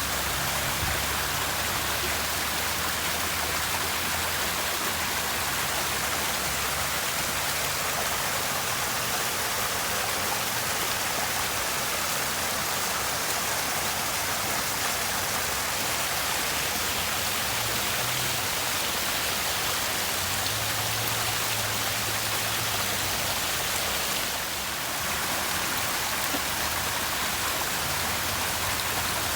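Water rushing and splashing steadily, with a short dip in level about three-quarters of the way through.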